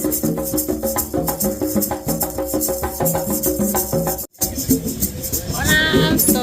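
Music with a quick, steady percussion beat, maracas shaking, over a line of held pitched notes. The sound drops out for a moment about four seconds in, and a voice rises over the music near the end.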